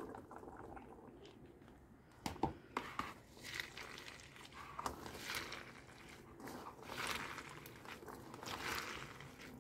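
Pomegranate arils being crushed by hand in a stainless-steel colander: an irregular, wet crunching as the seeds burst and their juice is pressed out, with a couple of sharp clicks about two seconds in.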